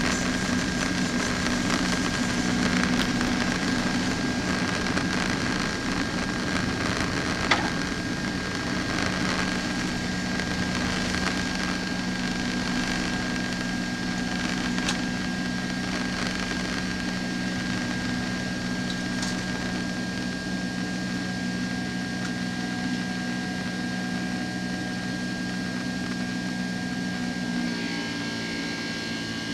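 Cabin noise of a Boeing 767-300ER at takeoff power: the twin jet engines' steady drone with a steady whine over a rush of air, through the end of the takeoff run and the climb-out. A single sharp knock about seven seconds in, and the engine note changes near the end.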